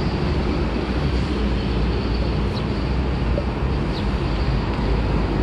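Steady road traffic noise, a continuous low rumble from vehicles on the road and the expressway overhead.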